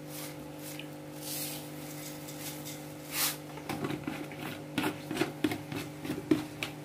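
Quiet handling noises at a steel mixing bowl: a couple of soft swishes, then from about halfway a string of light ticks and rustles as a hand moves things beside the bowl, over a steady low hum.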